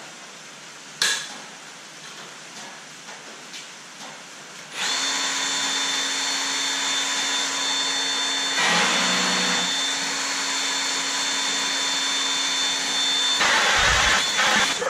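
Milwaukee magnetic drill starting about five seconds in and running with a steady whine as it drills into steel plate. Its sound shifts around the middle, and there is a louder, rougher stretch near the end. Before the drill starts, rain hisses on the shop's metal roof.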